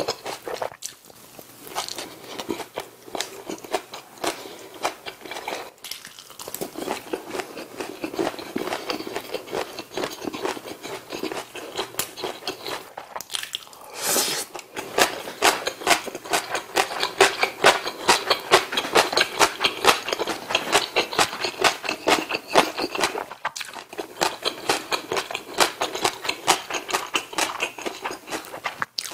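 A person chewing mouthfuls of rice and Korean side dishes close to the microphone, with rapid small mouth clicks and a few brief pauses between bites.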